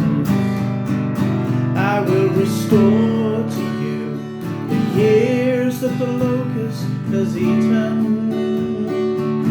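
Acoustic guitar strummed steadily in an instrumental passage of a worship song.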